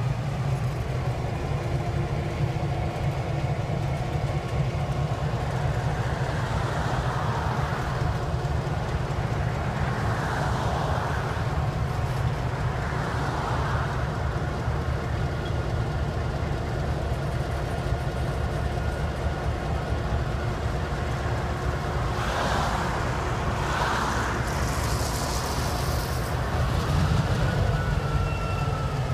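EMD GP9 diesel locomotives running steadily during switching, a constant low rumble with steady engine tones, and a few brief swells of hiss partway through and near the end.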